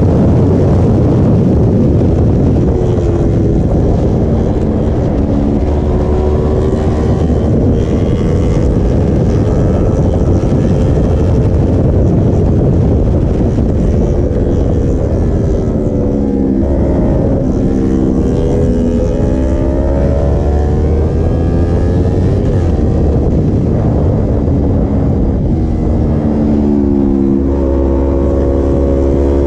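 Yamaha sport motorcycle's engine heard from on board as it is ridden. Its pitch falls and rises again several times as the rider eases off and accelerates through the bends, under a heavy rush of wind on the microphone.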